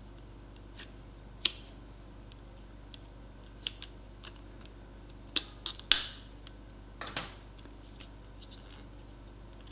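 Plastic catches of a phone's black plastic back frame clicking and snapping as a plastic pry tool lifts them: scattered sharp clicks, the loudest about six seconds in.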